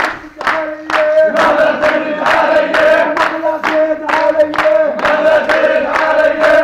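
A crowd of young men singing a celebratory zaffeh chant in unison, over a steady beat of hand clapping.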